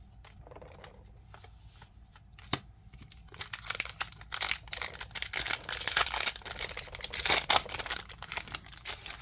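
Pokémon booster pack's foil wrapper torn open and crinkled: a dense run of tearing and crackling starting about three seconds in and lasting some five seconds, after a few light clicks and taps from card handling.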